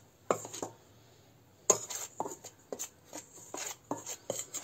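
Metal spoon scraping and clinking against a stainless steel bowl while stirring a dry mix of flour, semolina and gram flour, in irregular strokes. One stroke comes just after the start, then a quiet second, then a steady run of strokes.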